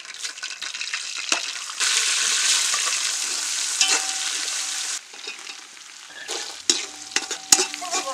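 Bay leaves and whole spices sizzling in hot oil in a large metal pot while a spatula stirs and scrapes them. The sizzling is loudest from about two to five seconds in, then drops to quieter scraping, with a few sharp knocks near the end.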